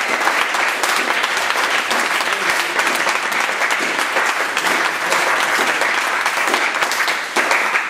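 Audience applauding steadily, thinning into separate, scattered claps near the end.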